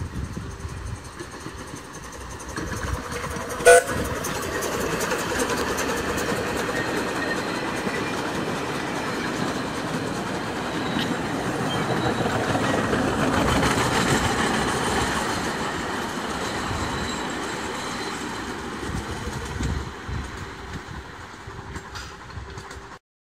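A 1925 Krauss-built Liliput miniature steam locomotive (381 mm gauge) and its open coaches running past, the rolling clatter of the wheels on the rails swelling to its loudest midway and then fading as the train moves off. About four seconds in comes a short, sharp toot.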